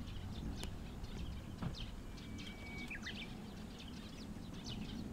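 Small birds chirping, many short high calls repeating throughout, over a low steady outdoor rumble.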